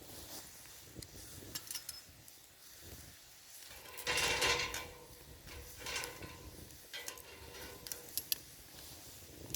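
Metal cooking gear being handled: clattering and clinking, with one louder clatter about four seconds in, another shortly after, and a few sharp clicks near the end.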